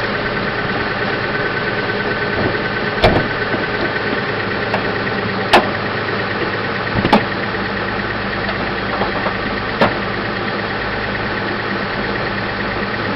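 The newly installed 3.5-litre V6 of a 2004 Kia Sedona idling steadily, with four sharp clicks spaced a few seconds apart.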